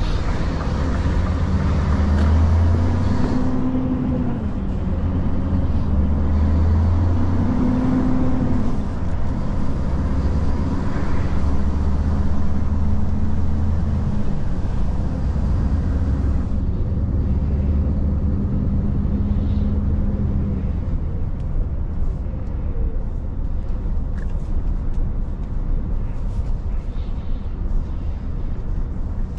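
Scania S770's 16-litre V8 diesel pulling the truck along, its note rising and then dropping twice as it moves up through the gears. It then holds a steady pitch and dies down to a low rumble about two-thirds of the way through.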